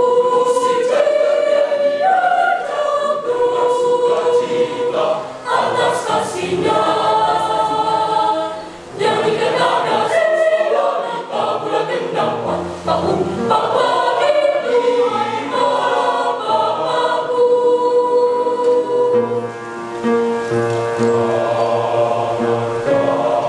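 Youth mixed choir of boys and girls singing a church choral piece in several voice parts at once, with short breaks between phrases.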